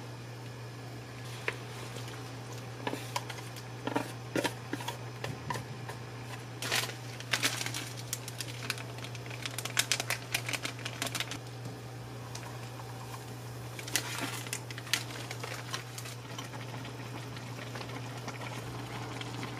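Food preparation in a pan: sliced ingredients tipped from a plastic bowl into simmering broth, then a plastic ramen noodle packet handled with irregular crinkles and clicks. A steady low hum runs underneath.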